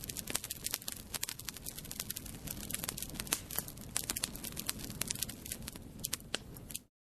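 Fire crackling: a steady low rumble of burning with many irregular sharp pops and snaps, cutting off suddenly near the end.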